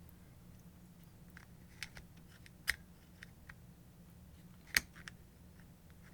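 Small clicks and taps from the parts of a disassembled angle grinder being handled, with two sharper clicks, one just before halfway and one about three quarters of the way in, over a faint steady hum.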